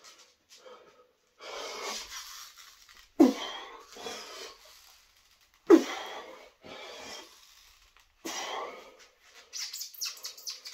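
A man breathing hard in forceful exhalations, with two loud strained grunts about three and six seconds in, from the effort of bending a steel bolt by hand. Quicker short breaths follow near the end.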